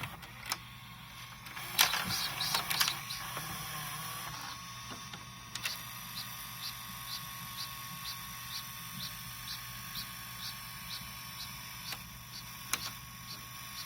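Videocassette recorder taking in a cassette: a few mechanical clunks about two seconds in and a brief motor tone. Then a long run of short, high chirps, about two a second, as the tape runs. This is a whistling felt pad in the tape path, a sign that the felt needs replacing or cleaning.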